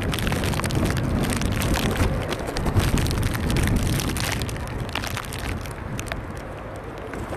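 Wind buffeting the microphone in a low, gusting rumble, with dense crackling like rain striking it; the crackle and overall level ease off about two-thirds of the way through.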